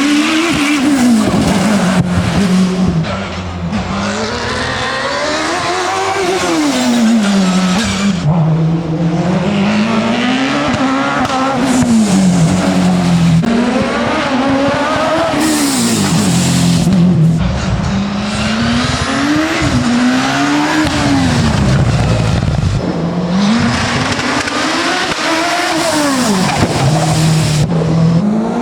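Racing car engine at full throttle on a hillclimb run. Its note climbs and drops again and again, every two or three seconds, as the car accelerates and then lifts off for corners.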